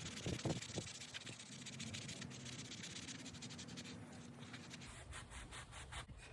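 Faint scratching of 200-grit sandpaper rubbed over the primer on a 3D-printed helmet mask, in quick repeated strokes.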